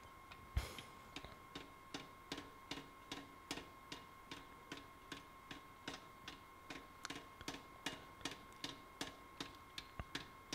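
Power hammer driving a set hammer down onto a hot steel scythe blade in steady, evenly spaced blows, about two a second, faint and sharp. The blows are squaring up the transition between the blade's thick spine and its edge. A steady faint high hum runs underneath.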